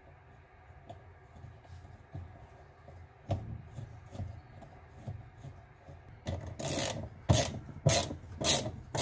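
Hand tools at work on a washer's motor fan screw: quiet handling knocks, then, near the end, a run of loud rasping strokes about every half second or so as the screw is tightened with a wrench.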